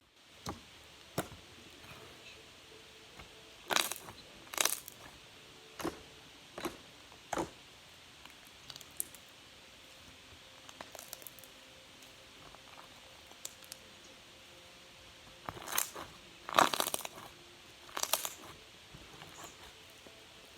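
Slime being handled: irregular short crackles and clicks, about a dozen, with the loudest clusters about four seconds in and near the end.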